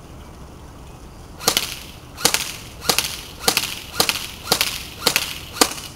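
Classic Army MP5A2 airsoft electric gun (AEG) firing eight single shots, one every half to two-thirds of a second, starting about a second and a half in.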